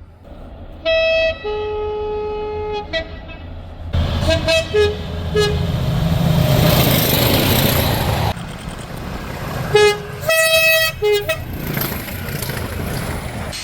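Two-tone horn of a British diesel or electric locomotive, sounding a high note then a low note, repeated several times. In the middle a train passes loudly, its engine and wheel noise almost covering a few short horn blasts.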